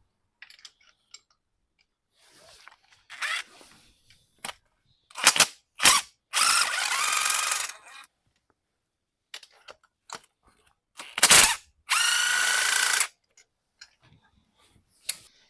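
A cordless power tool runs twice, for about two seconds and then about one second, spinning out the spark plugs. Between the runs come clicks and knocks of tools and parts.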